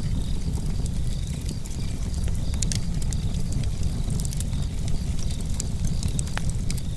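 Outdoor nature ambience: a steady low rumble of wind on the microphone, with scattered faint crackles and faint high-pitched chirping.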